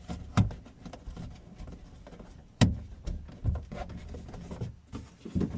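Handling clicks and knocks of a Hyundai i40 door lock's cables being clipped into place, with one sharp click about two and a half seconds in and a few softer knocks around it.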